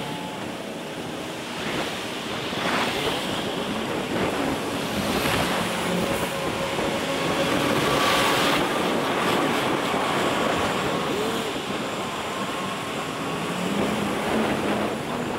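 Wind rushing over a moving cyclist's camera microphone, with city traffic underneath; the rush swells loudest about eight seconds in.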